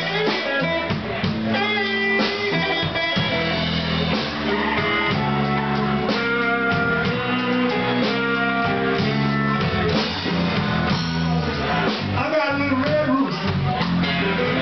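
A live blues band playing electric guitar, bass and drums at a steady beat.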